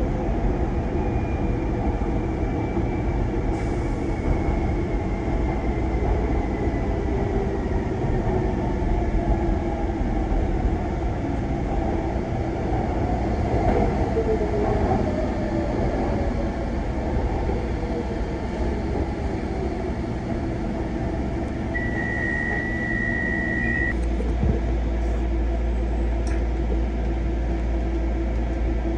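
Docklands Light Railway train running on elevated track, heard from inside the front of the car: a steady rumble of wheels and body, with a faint motor whine that slides down in pitch over the first ten seconds and more gliding whine near the middle. A short steady beep lasts about two seconds a little past twenty seconds in.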